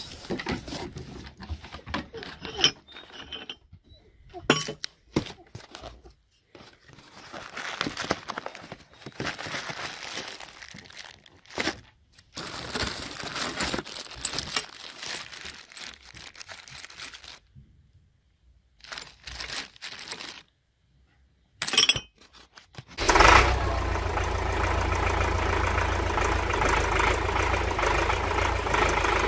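Paper and cardboard packing rustling and crinkling as new steel plow parts are unwrapped, with sharp clinks and knocks of metal and several brief silences. About 23 seconds in, this gives way to a Belarus MTZ-82 tractor's four-cylinder diesel engine running steadily at idle.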